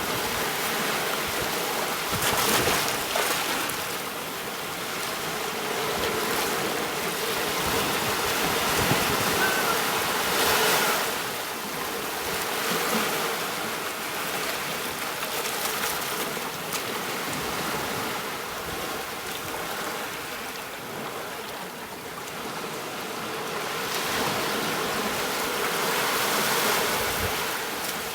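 Ocean surf washing onto a beach: a steady rush that swells and eases, with louder waves breaking a couple of seconds in, about ten seconds in and again near the end.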